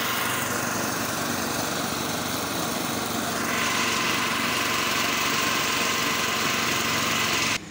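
Sugarcane juice crusher's small engine running steadily, with a constant mechanical drone and no change in speed. It cuts off suddenly near the end.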